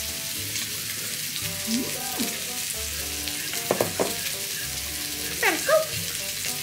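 Samgyeopsal (pork belly) sizzling on a grill: a steady frying hiss throughout, with a few short vocal sounds over it.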